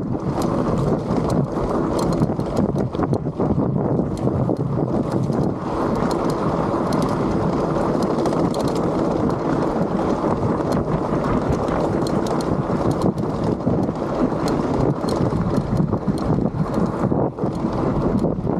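Motor-assisted bike riding over a rocky trail: steady tyre noise with many small clicks and knocks as the tyres and frame rattle over stones, and wind buffeting the microphone.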